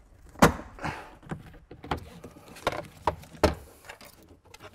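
A MINI Cooper's hard plastic interior trim panel being pulled and pried off its clips by hand: about half a dozen sharp plastic clicks, snaps and knocks, the loudest about half a second in.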